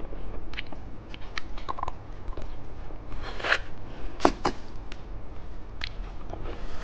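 Plastic candy packaging being handled and opened: scattered sharp clicks and short crinkles, with a longer rustle about halfway through.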